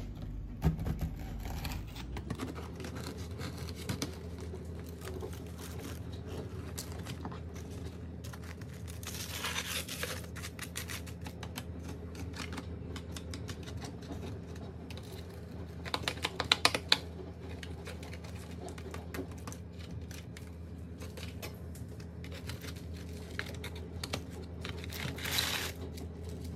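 Knife scraping and prying at a baked salt crust, the hard crust crackling and pieces knocking against a metal baking tray, with a cluster of sharp clicks about two-thirds of the way through. Near the end, a brush sweeps loose salt off the fish in scratchy strokes.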